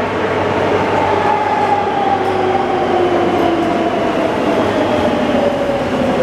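Madrid Metro train pulling into an underground station: a steady rumble of wheels on rail, with a whine that falls slowly in pitch as the train slows.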